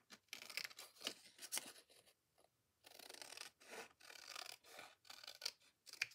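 Small scissors making a series of faint, short snips as they trim patterned paper along the edge of an index card, with a pause of about a second partway through.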